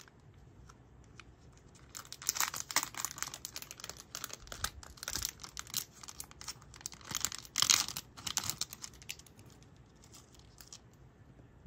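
A keychain's packaging being torn open and crinkled by hand, in irregular bursts, with the loudest tear about eight seconds in.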